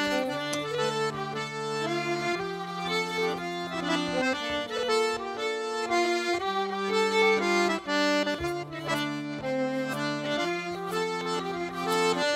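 Accordion playing a traditional Breton dance tune: a lively melody over held bass notes that change about every two seconds.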